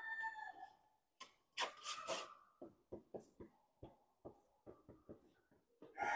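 A rooster's crow in the show hall trails off at the start. It is followed by a brief rustle and then a string of faint, soft clicks, about two a second. A second crow begins right at the end.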